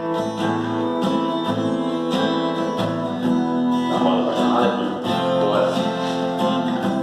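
Instrumental intro of a sertanejo love song, led by guitar with band accompaniment, playing steadily before the vocals come in.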